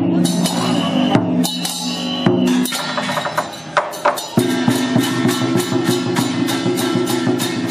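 Temple procession music: drums and percussion struck over sustained low tones, scattered at first, then settling a little past halfway into a steady beat of about four strokes a second.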